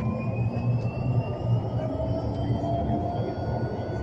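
Mercedes-Benz eCitaro battery-electric articulated bus running, its electric drive giving a thin whine that rises slowly in pitch, over a steady low rumble.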